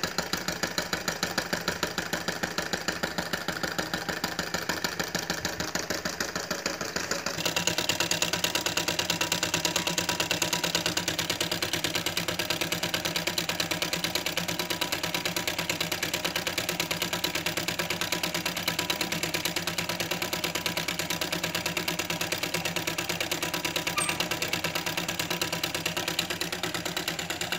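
Small homemade steam engine running: a candle-heated tin can drives a syringe plunger back and forth, turning a CD flywheel, with a rapid, even mechanical beat.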